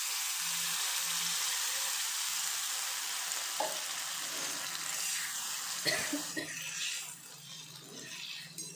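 Hot wok sizzling as a thin liquid sauce mixture is poured onto fried garlic, onion and capsicum, the hiss slowly dying down as the liquid cools the pan. Near the end a metal spatula knocks and scrapes against the wok as the sauce is stirred.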